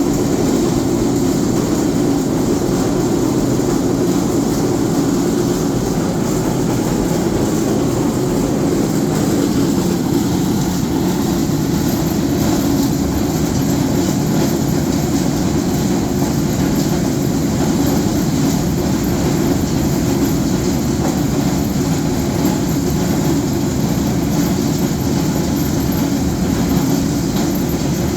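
4R roller mill running under load, grinding: a steady, loud, dense mechanical rattle that holds even throughout, heaviest in the low-middle range.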